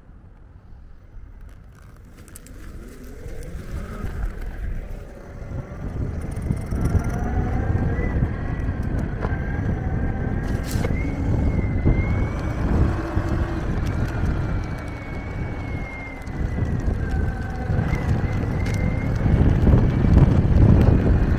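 Electric mountainboard riding on pavement: the motor's whine climbs in pitch as it speeds up over the first few seconds, then holds with small rises and falls, over a steady rumble of the pneumatic tyres and wind on the microphone. It eases off briefly past the middle and is loudest near the end.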